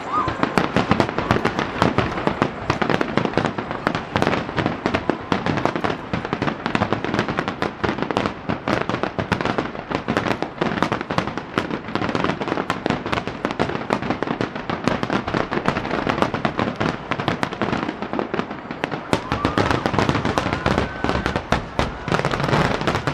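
Aerial fireworks in a rapid starmine barrage: a dense, continuous run of shell bursts, bangs and crackling with no pause.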